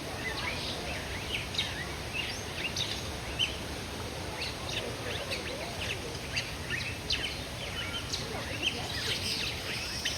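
Many small birds chirping and calling at once in a zoo aviary: a dense run of short, quick, high chirps overlapping throughout. A steady low background hum runs under them.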